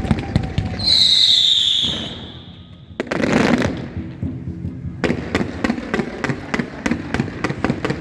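Fireworks going off: a loud whistling firework with a slightly falling whistle about a second in, a bang at about three seconds, then a fast run of sharp crackling reports through the rest.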